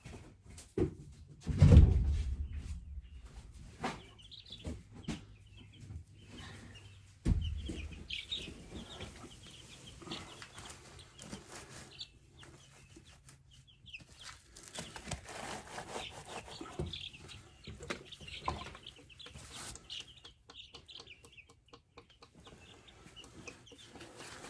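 Young chicks in a brooder pen peeping and cheeping, with two heavy thuds about 2 and 7 seconds in.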